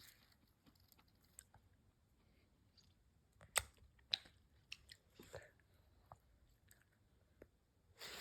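Faint chewing of hard candy, with a few short crunching clicks clustered between about three and a half and five and a half seconds in.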